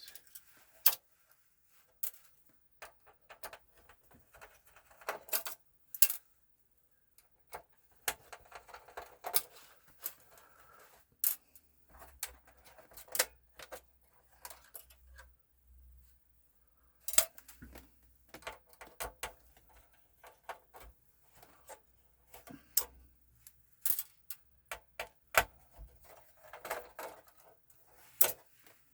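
Hand screwdriver backing small screws out of a PS4 Pro console's casing: scattered sharp clicks and ticks of metal on metal and plastic, with stretches of fast scratchy ticking as the screws turn.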